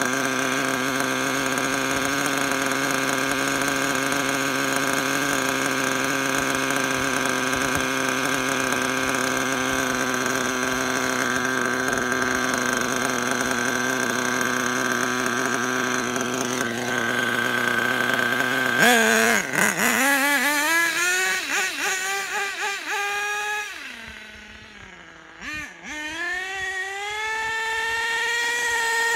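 Nitro engine of an HPI Racing Monster ATV (RC quad built on the Savage 25) idling steadily, then revving hard about two-thirds of the way in as the ATV drives off, its note rising and falling. It fades with distance, then grows louder again near the end.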